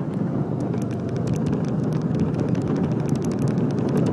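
Go-kart engine running steadily while the kart drives around the track, heard from on board.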